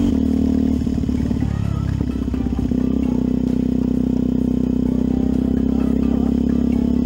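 Yamaha WR125X's 125 cc single-cylinder four-stroke engine running while being ridden. About a second in, the engine beat turns choppy and slightly quieter for a couple of seconds, then settles back into a steady run.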